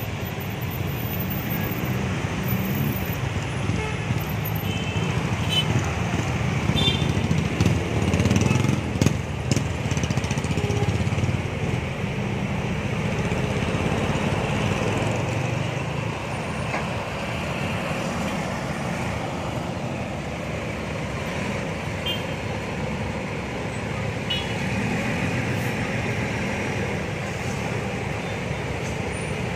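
Diesel engines of large coach buses pulling out into traffic: a steady low rumble over street traffic noise, swelling for a few seconds around eight to eleven seconds in. A few short high toots sound briefly twice.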